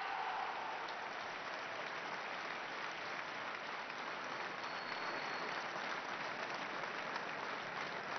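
Large crowd applauding steadily, a dense patter of many hands clapping.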